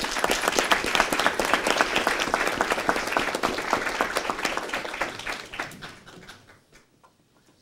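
A small group applauding: many overlapping hand claps that thin out and stop after about six seconds.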